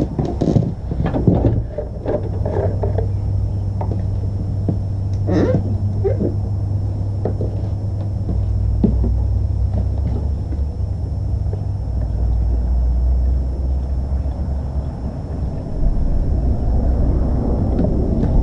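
Wind blowing on the microphone, a steady low noise that grows a little near the end, with a few sharp clicks and knocks in the first seconds as a plastic gas can is handled.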